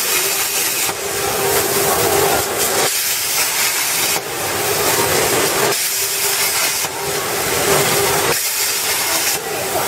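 CNC plasma cutting torch and its compressed air, a loud steady hiss with a steady hum in some stretches, changing abruptly every second or two.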